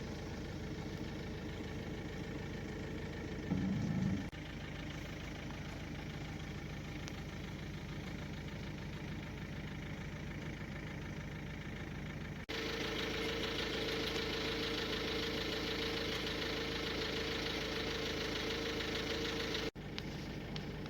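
A steady engine hum, like an engine idling. A brief louder burst comes a few seconds in, and the hum jumps abruptly louder about two-thirds of the way through.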